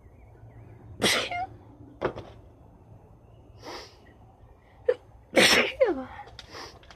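A woman sneezing: two loud sneezes, about a second in and about five and a half seconds in, the second trailing off in a falling voiced tail, with shorter, fainter breaths and catches between them.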